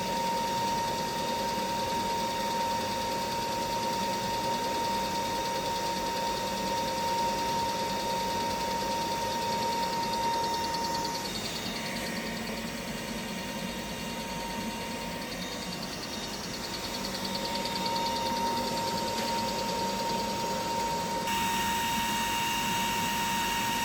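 High-voltage capacitor charging power supply running under test into a capacitor bank: a steady high-pitched electrical whine over a hum and fan-like hiss. The whine breaks off briefly about halfway through, and the hiss changes near the end.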